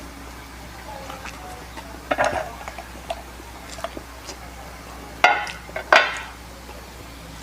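Close-miked eating sounds of a pizza mukbang: small clicks and mouth noises, a short clatter about two seconds in, then two loud sharp crackling noises about five and six seconds in.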